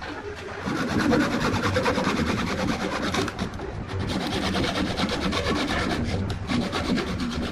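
A thin saw blade rasping against areca-root wood as it spins on a lathe, cutting in at the joint between the vase and its mounting block. The steady scraping starts and grows louder a little under a second in, over the lathe's low hum.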